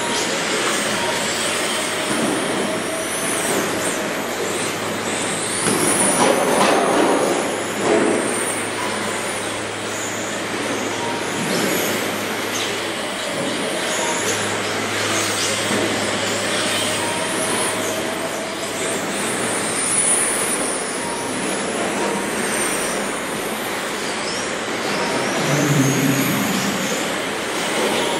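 Radio-controlled race trucks running laps: high motor whines rising and falling as they accelerate, brake and pass, over steady tyre and drivetrain noise, louder as trucks pass close about six and eight seconds in.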